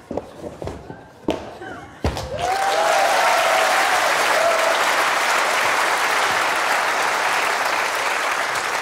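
A few thumps of feet landing on the stage as a man jumps over a row of chairs. About two seconds in, a studio audience breaks into loud applause with a brief whoop, and the clapping goes on steadily.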